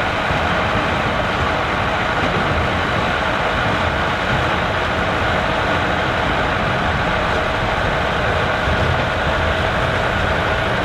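Massey Ferguson 3070 tractor's diesel engine running steadily, with a constant mechanical din and no change in pace.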